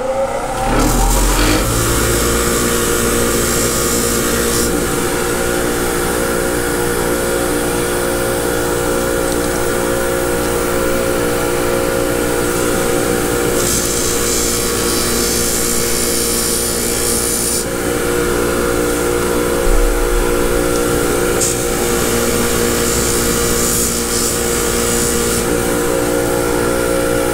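Bench grinder motor winding up to speed in the first couple of seconds, then running steadily. Its wire wheel scrubs old pipe dope and oil off a motorcycle drain plug's threads in spells of harsh hiss, clearest at the start and again from about 14 to 17 seconds.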